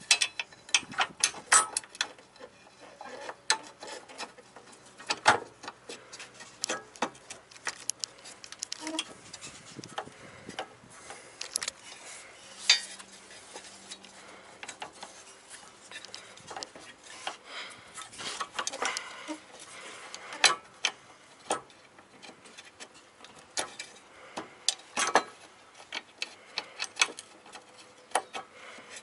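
Irregular metallic clicks, taps and light knocks of small metal parts being handled: a bolt and the bracket of a VW Mk2 rear brake proportioning valve being worked into place by hand against its mounting plate, a fiddly fit.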